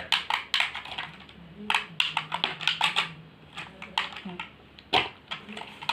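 Quick irregular plastic clicks from a toy RC car's remote controller being handled and its buttons pressed, with a faint steady low hum through the first few seconds.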